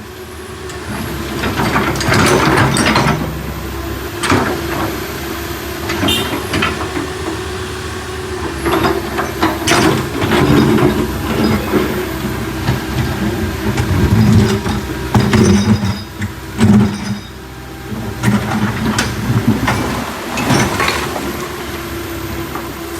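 Backhoe's diesel engine running under load, with repeated clanks and knocks from the bucket and arm at work.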